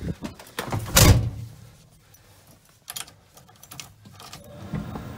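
A loud bump about a second in, then a few clicks from the dashboard controls, and near the end the heater blower fan of a 1986 Chevrolet C10 pickup comes on with a steady low hum.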